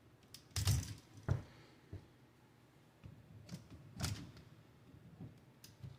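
Sharp clicks of a GFCI outlet's test and reset buttons being pressed several times as the outlet trips and resets during a function test.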